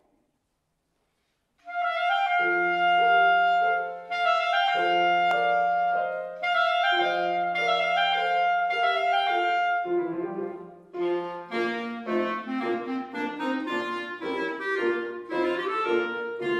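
Clarinet and grand piano playing together, starting about a second and a half in: long held clarinet notes in phrases over repeated piano chords, turning to a busier run of faster notes from about ten seconds.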